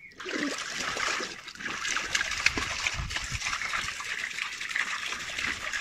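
Water splashing and sloshing in an inflatable paddling pool as a small child moves about in it, with a few low thumps about three seconds in.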